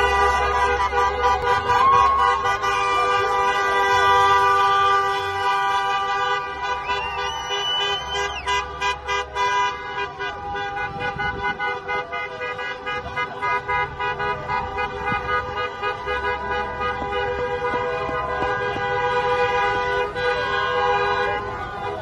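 Many car horns sounding at once and held long and steady, with a crowd cheering and shouting over them.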